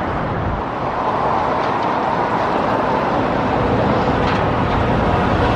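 Strong wind buffeting the microphone: a steady, loud rushing roar with irregular low rumbles.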